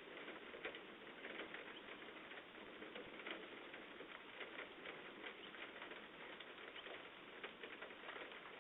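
Faint, steady patter of many small impacts from storm precipitation falling on hard surfaces.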